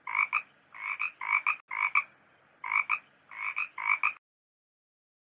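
Frog croaking, added as a sound effect: a run of about seven croaks, each a quick two-note call, stopping abruptly about four seconds in.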